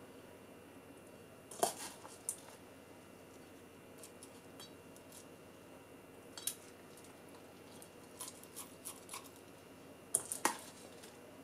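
A metal spoon clinking and scraping against a stainless steel bowl while scooping rice into a squid tube: scattered light clinks, the sharpest about a second and a half in and near the end, with a run of small taps around eight to nine seconds.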